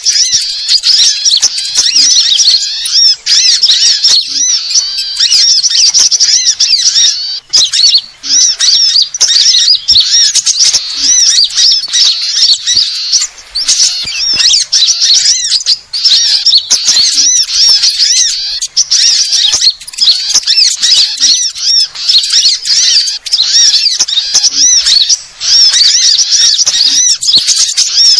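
A dense, continuous chorus of many small songbirds chirping and trilling all at once, fast and high-pitched. It is a combined bird-lure ('suara pikat') recording, a noisy mix of small-bird calls played to draw wild small birds in for trapping.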